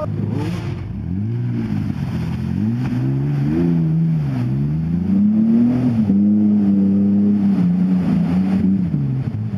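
2000 Ford Explorer's engine revving up and down several times on an off-road trail. It then holds high revs for a couple of seconds before dropping back near the end.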